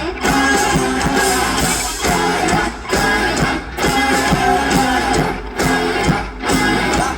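Loud pop music with strummed guitar over a steady, regular beat.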